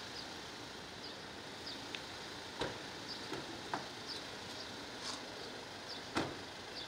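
Toyota Land Cruiser Prado's door being shut: a few clicks and knocks, the loudest thud near the end. A short high chirp repeats about every second over a steady background hiss.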